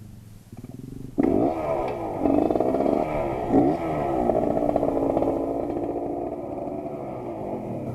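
Suzuki TS125's single-cylinder two-stroke engine comes in suddenly about a second in and is revved up and down several times, then runs more steadily.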